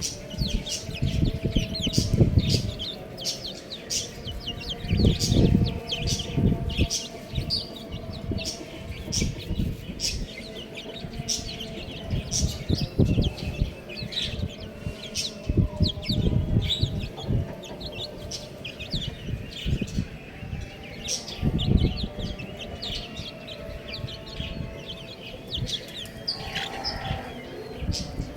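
Baby chicks peeping: many short, high chirps overlapping without a break. Low rumbling bursts come and go underneath.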